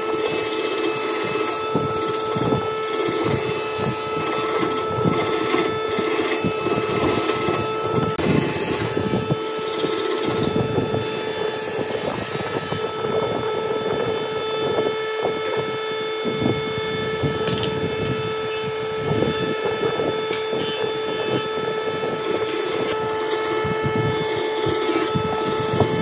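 A power tool's motor running with a steady hum, with irregular scraping and knocking of wood being cut.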